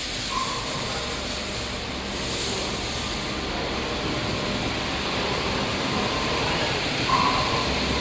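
Steady hiss and hum of a network-cable triple twist machine running, with two faint short beeps, one just after the start and one near the end.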